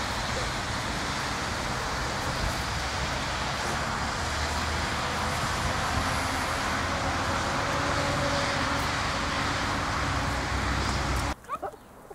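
Steady outdoor background noise that fills the whole range of pitch with a strong low end, dropping away suddenly about a second before the end.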